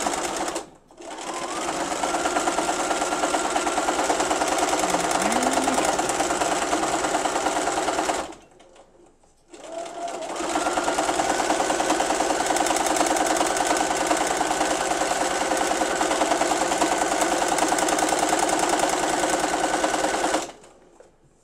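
Domestic sewing machine free-motion stitching at speed, running in three spells. It stops briefly about half a second in and for a second or so in the middle, and its motor rises in pitch as it speeds up after each restart. It stops a second before the end.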